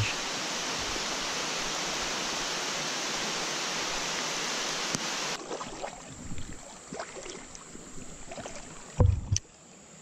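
Steady downpour of rain, a dense even hiss, that cuts off abruptly about five seconds in. Then quieter creek water with small splashes and a single loud thump near the end.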